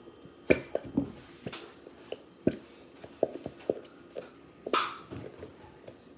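A plastic glue bottle squeezed upside down over a plastic mixing bowl, giving a run of irregular sharp clicks and knocks, with one short, rougher squirting burst about three-quarters of the way through as the bottle empties.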